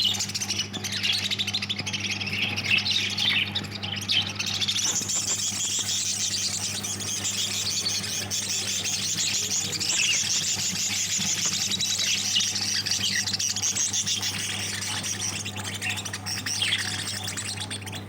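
Caged lovebirds chattering: several birds chirping and squawking at once, without a break. A steady low hum runs underneath.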